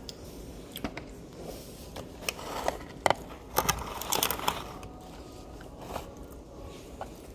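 Crunching and chewing on a crispy fried egg roll: a run of sharp crackles, densest in the middle.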